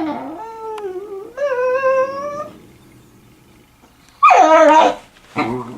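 A dachshund whining. There is a long rising whine, then a pause, then a louder whine that falls in pitch, and another begins near the end. The dog is eager to play ball.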